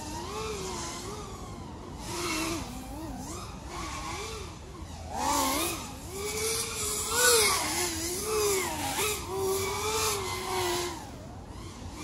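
FPV racing quadcopter's brushless motors whining as it flies the track, with the throttle capped at 80%. The pitch keeps rising and falling with the throttle, and it is loudest about halfway through.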